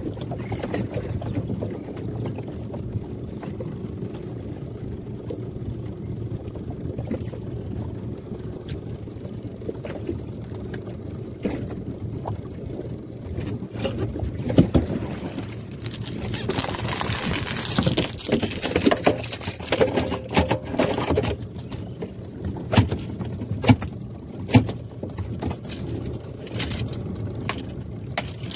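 Yamaha 15 outboard motor running steadily at trolling speed, with water washing against the small fibreglass hull. Wind buffets the microphone in louder gusts about halfway through, and a few sharp knocks come later on.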